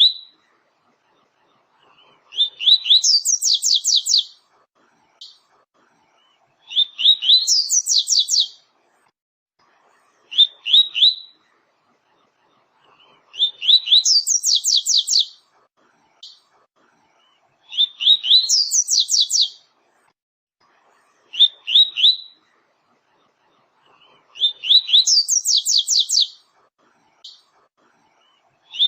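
Double-collared seedeater (coleiro, papa-capim) singing the 'tui-tui' song: a couple of short high notes, then a quick run of sharp descending whistles, repeated about every four seconds with clean silent gaps between phrases.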